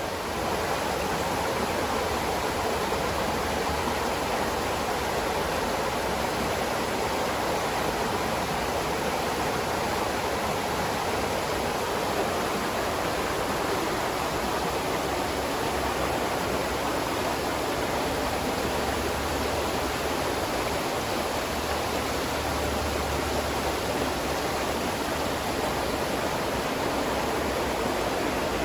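Spring water flowing and splashing, a steady, even rush of running water.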